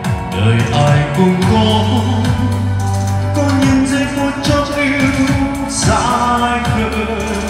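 A song with a singing voice over a held bass line and a regular drum beat.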